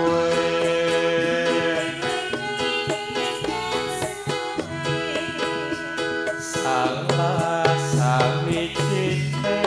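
Live Javanese Ndolalak band music through a PA sound system: drums and percussion keeping a beat under a melody, with a woman singing into a microphone.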